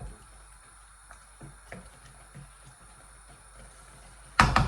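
A utensil knocking against a cooking pot of curry: a few light taps, then a loud clatter of three or four knocks near the end.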